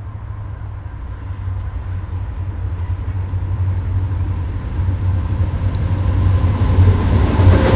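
EMD SD50 diesel-electric locomotive approaching at the head of a train, its 16-cylinder two-stroke diesel engine giving a low rumble that grows steadily louder as it nears.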